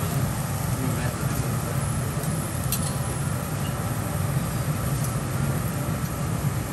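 Halved lobster sizzling steadily on a hot teppanyaki griddle over a low rumble, with one light metallic clink of a cooking utensil near the middle.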